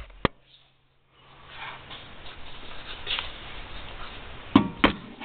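Rustling handling noise from a hand-held camera being moved about under a car, ending in two sharp knocks about a quarter second apart near the end.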